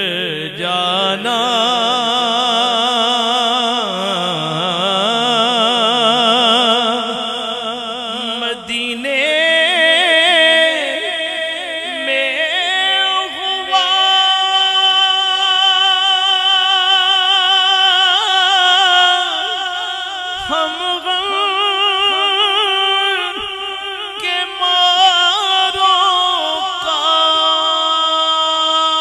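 A man's solo voice singing an Urdu naat, a devotional song in praise of the Prophet, without instruments. He holds long ornamented notes with a wide, wavering vibrato and climbs to higher held notes between about nine and thirteen seconds in.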